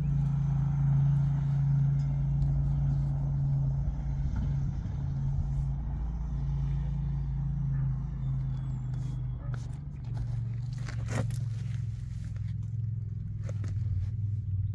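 An engine running steadily at idle, a low hum that drops slightly in pitch about ten seconds in, with a few sharp clicks over it.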